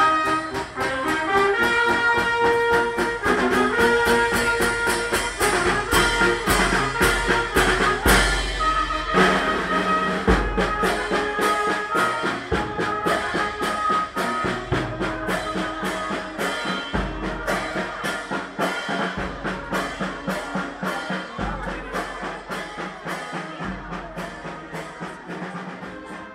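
Italian street brass band (trumpets, saxophones, sousaphone, horns and a marching drum) playing a march with a steady beat. It grows gradually fainter as the band moves away.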